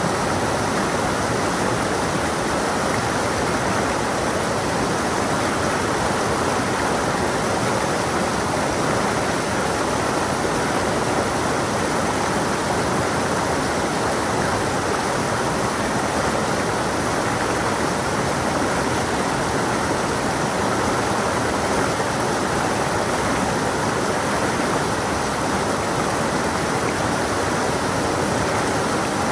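A stream of water running steadily over rocks, an even rushing and splashing with no break or change.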